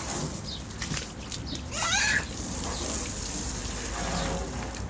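Garden hose spraying water with a steady hiss, and a young child's short squeal about two seconds in.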